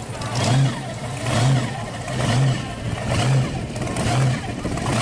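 Supercharged V8 of a 1957 Chevy pro-street car running at a low, rough idle with a heavy rhythmic lope, surging about once a second as the car creeps forward.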